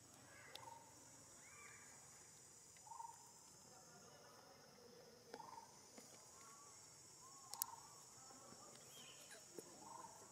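Faint outdoor ambience: a steady high insect drone, with about half a dozen short, arching animal calls and a few sharp clicks.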